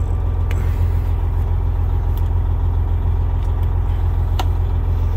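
Freightliner Coronado's diesel engine idling, a steady low rumble heard from inside the cab, with a few faint clicks as the stuck wiper switch is pried at.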